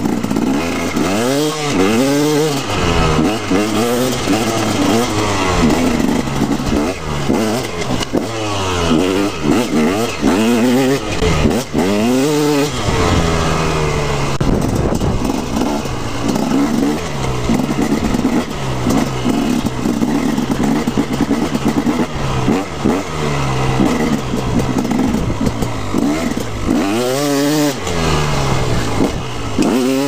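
2016 KTM 250SX two-stroke single-cylinder dirt bike engine under way, its pitch repeatedly climbing as the throttle is opened and dropping back off it.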